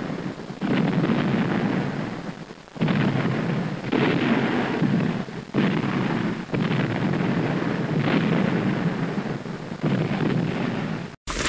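A string of heavy explosions or artillery-like booms, one after another about every one to two seconds. Each starts suddenly and rumbles on before the next. The sound cuts off briefly just before the end.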